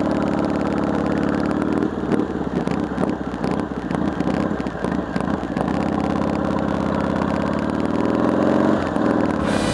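Harley-Davidson Heritage Softail's V-twin engine running while riding, its pitch shifting up and down, with a rougher, unsteady stretch in the middle.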